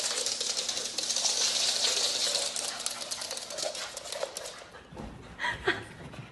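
Small dog scampering on a wooden floor, its claws clicking, over a steady hiss; two short louder sounds come near the end.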